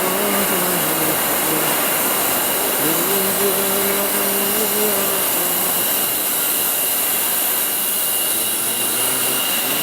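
Magnet wire production machinery running steadily: an even whirring hiss with a thin high whine, and a lower pitched hum that swells in for a couple of seconds midway.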